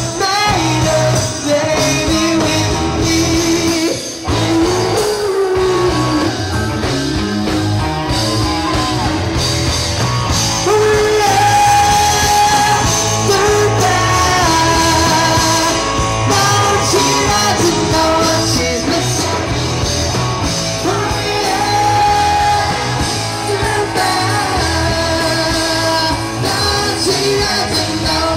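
Live rock band playing, with a male lead singer over electric guitar, keyboard and drums.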